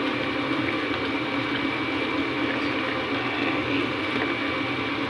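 Pot of fettuccine at a rolling boil, the water bubbling and foaming steadily as the pasta is turned with a slotted spoon. A thin steady high tone runs underneath.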